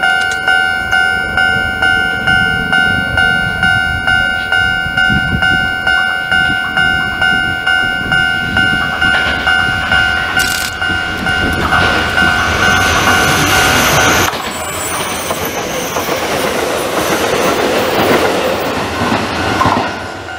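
Level-crossing alarm bell ringing a steady repeating ding, about twice a second, as a Sanyo Electric Railway 3000-series electric train approaches; the alarm cuts off suddenly about 14 seconds in. The train's wheel and rail noise builds from about 9 seconds in and carries on as it runs past.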